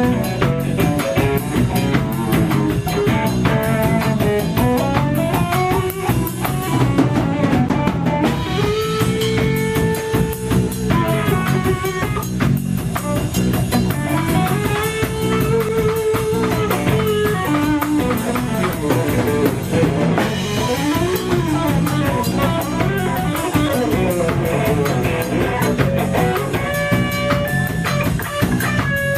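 A live band playing an instrumental passage: a guitar plays melodic lines with long held notes over a steady drum-kit beat.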